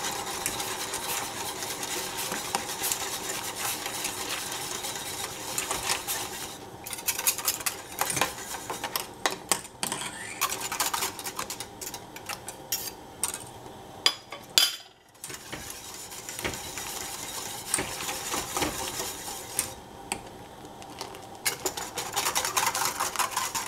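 Wire whisk beating milk and Nutella in a stainless steel saucepan: rapid scraping and clinking of the metal wires against the pan, with a few louder metal knocks and a short pause about fifteen seconds in.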